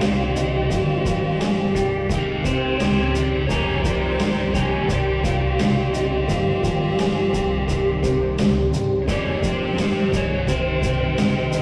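Slowed-down, reverb-heavy music with a guitar-like tone, over a steady pulse of about three to four ticks a second.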